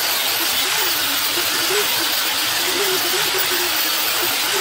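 Handheld electric grinder stripping old paint off a steel trike frame down to bare metal: a steady hiss of grinding with a motor hum that wavers up and down in pitch.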